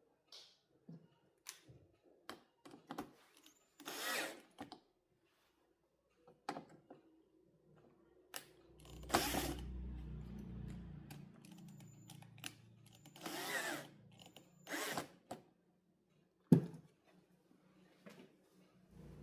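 Handheld power drill run in several short bursts, one of them longer at about nine seconds in, with clicks and knocks of handling in between and a sharp knock near the end.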